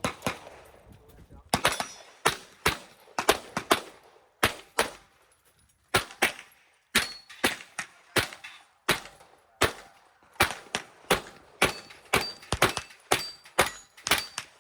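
9mm Glock pistol fired rapidly in a practical-shooting stage, mostly in quick pairs about a third of a second apart, with a brief pause partway through before the pairs resume.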